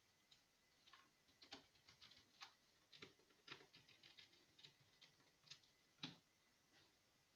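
Faint, irregular clicks and light taps, about a dozen, spaced unevenly.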